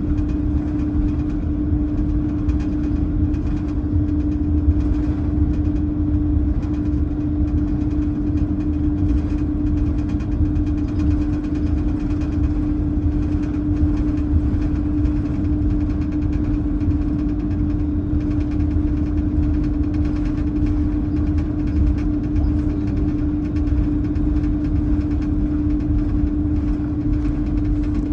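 Airbus A330-203 cabin noise: the airliner's General Electric CF6 turbofans and airflow make a steady low rumble, with one constant hum on top that does not change.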